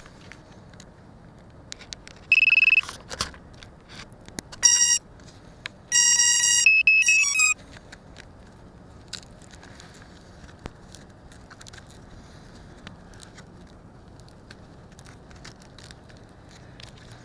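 Electronic beeps from a downed FPV quadcopter lying in the grass. There is a short high beep about two seconds in, another beep near the five-second mark, then a run of beeps that ends in a few quick notes stepping in pitch; faint ticking and crackle lie under it all.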